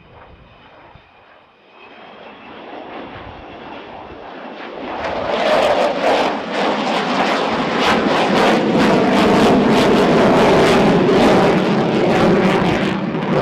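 Avro Vulcan bomber's four Rolls-Royce Olympus jet engines on a flypast. A faint high whine at first gives way to jet noise that builds and turns loud and crackling from about five seconds in.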